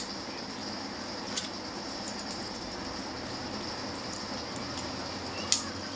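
Small plastic medicine packet handled by hand: a couple of sharp crinkling clicks, one about a second and a half in and a louder one near the end, over a steady background hiss.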